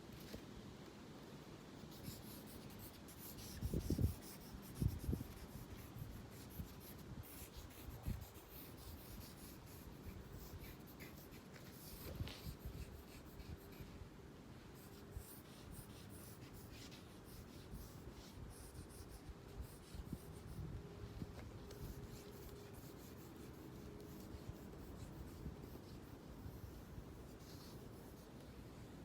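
Drawing tool scratching and rubbing on paper in quiet, uneven strokes, with a few low thumps about four and five seconds in.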